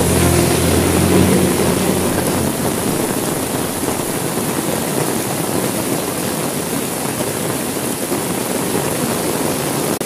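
Heavy rain falling steadily, with a low rumble of thunder over the first two seconds or so that dies away.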